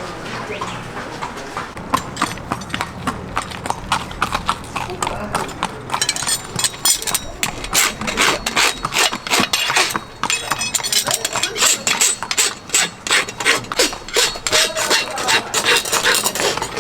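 A horse's hooves clip-clopping on a hard floor: irregular knocks that come thicker from about six seconds in.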